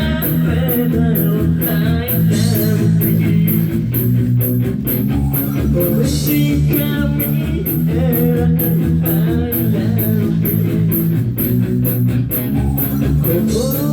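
A live rock band playing loudly: electric guitar, bass guitar and drums, with a fast, steady cymbal beat.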